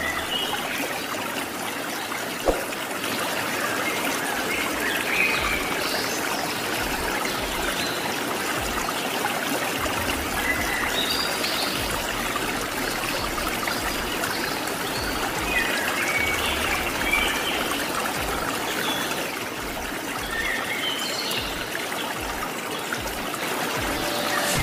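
Rushing river water running steadily over rocks, with short high chirps now and then and a single sharp click about two and a half seconds in.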